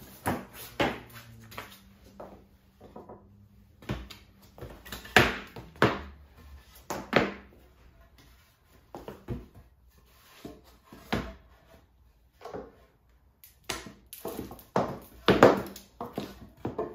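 Lumber being handled and set down: 2x4 boards and a plywood sheet knocking against each other and the floor in a series of irregular wooden knocks and thuds, the loudest about five seconds in and near the end.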